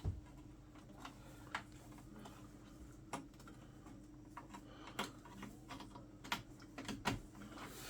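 Scattered light clicks and taps of small parts and connectors being handled, over a faint steady hum.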